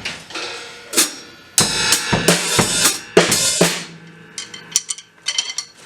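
Drum kit played in a fast fill, with bass drum and snare hits and crash cymbals struck so that their wash rings over the strikes. About four seconds in, it turns to lighter, sharper taps.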